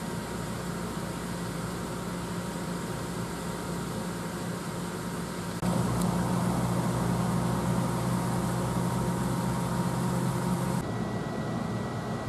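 NJ Transit Arrow III electric multiple-unit train standing at the platform, its onboard equipment giving a steady electrical hum with several low tones. The hum steps up louder about five and a half seconds in and changes character again near the end.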